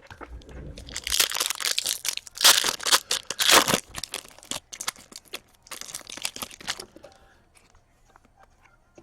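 Foil trading-card pack wrapper being torn open and crumpled, in loud crinkling bursts through the first few seconds and again briefly around the middle, then fainter handling.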